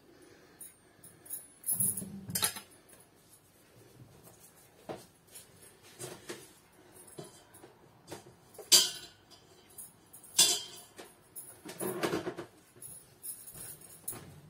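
Intermittent kitchen clatter: scattered knocks and clinks of utensils and dishes being handled, with a few louder clatters spread through.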